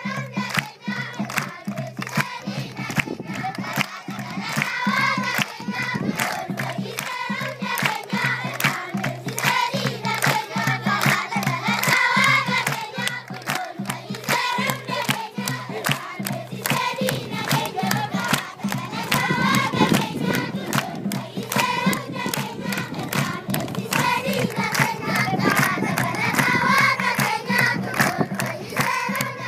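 A large group of children singing together and clapping in time.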